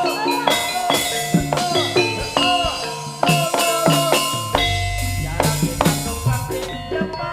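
Live Javanese jaranan music: a fast, busy pattern of drums and ringing struck percussion, with a deep bass rumble entering about halfway and easing off near the end.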